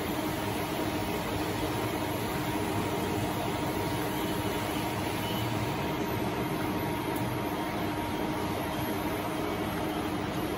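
JX-3 top-entry high shear homogenizer, a 3 kW motor turning its rotor-stator head at 3000 rpm, running steadily in liquid in a stainless steel pot. It makes an even mechanical hum with a couple of constant tones and no change in speed.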